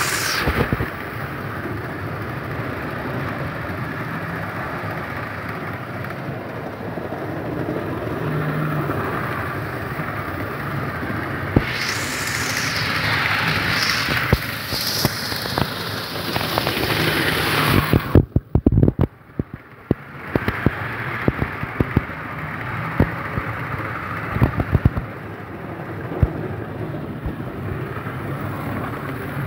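Model train, a Class 47 diesel locomotive model pulling eight Mk3 coaches, running around the layout track: a steady rumble of wheels on rails with scattered clicks over the rail joints. The rumble drops away suddenly for a moment about two-thirds of the way through.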